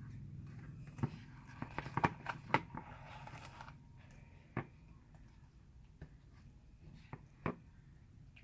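Homemade glue slime, still sticky like glue, being handled with fingers: a few soft, sticky clicks, one about a second in, a cluster around two seconds in, and single ones near the middle and near the end.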